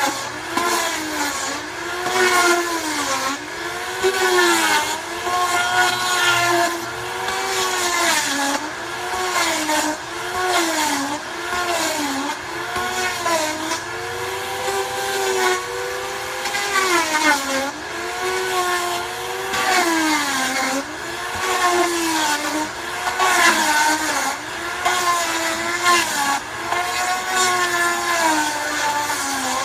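Paint Shaver Pro, an angle-grinder-type paint remover with a carbide cutter head, stripping paint from wooden shingle siding. Its motor whine dips in pitch and recovers every second or two as the cutter bites into the paint and is eased off.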